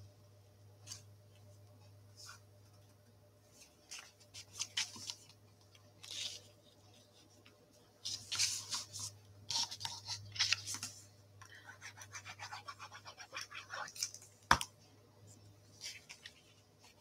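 Paper and cardstock being handled and pressed down on a craft table: scattered rustles and rubs, a quick run of small scratchy taps about twelve seconds in, and one sharp knock a little later, the loudest sound. A low steady hum runs underneath.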